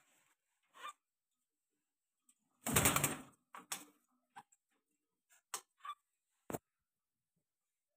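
Scattered sharp clicks and knocks, with one louder rustle lasting about half a second around three seconds in.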